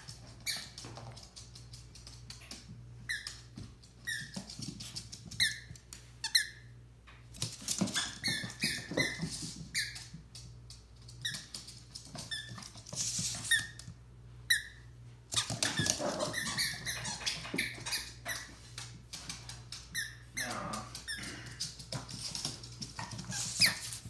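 Dog's rubber squeaky toys squeaked again and again in short, high squeaks as a papillon mouths and chases them. Light clicks and patter of the dog on the wooden floor come in between.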